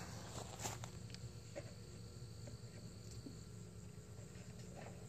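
Faint, steady high-pitched trilling of evening insects such as crickets, with a few soft knocks scattered through it.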